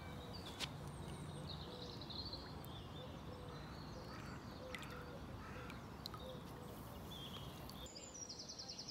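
Steady outdoor background noise with birds chirping and calling, and a single sharp click about half a second in.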